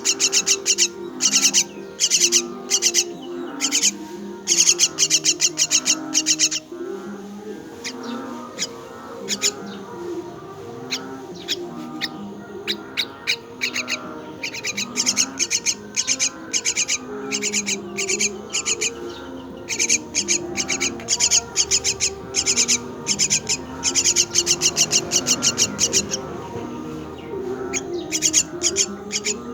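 Myna chicks begging at the nest: rapid, harsh, high-pitched chirps repeated many times a second in runs of several seconds, with short pauses between runs.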